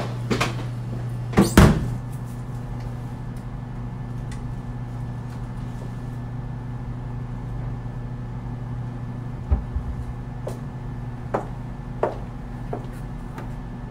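Steady low hum of a small kitchenette, with one sharp knock about a second and a half in, then a few light clicks and knocks further on, as things are handled at the counter beneath the wall cupboards.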